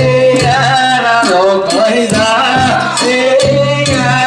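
A man singing a danjiri hauling song (hikiuta) in long, wavering held notes, with sharp strikes of the cart's hand gong and drum behind him.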